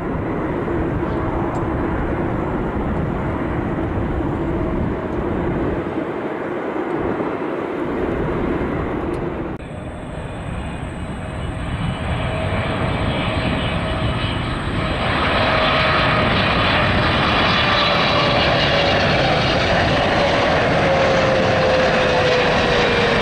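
Jet engines of a taxiing Boeing 747 freighter running at idle, a steady rumble with a hum. After a cut about ten seconds in, a Boeing 777 on final approach with gear down passes close; its engine noise grows louder about fifteen seconds in, with a whine that slowly falls in pitch.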